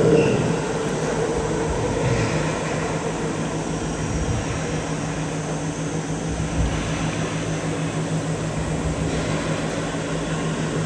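Low, steady drone of a large oil/chemical tanker's engine as the ship passes, with a fine even pulse running through it.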